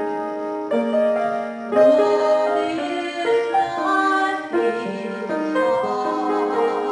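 Piano music: held notes and chords that change every second or so.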